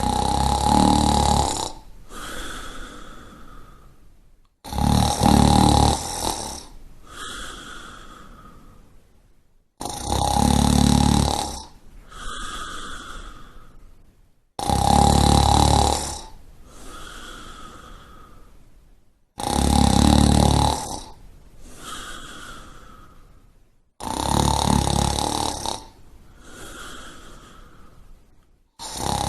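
Snoring in a steady rhythm: a loud snore of about two seconds on each in-breath, then a quieter out-breath, the cycle repeating about every five seconds, six times.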